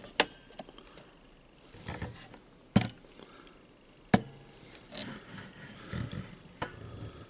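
Handling noise as a soldering-iron mount is worked on: four sharp clicks or knocks a second or more apart, with softer scraping and fumbling between them.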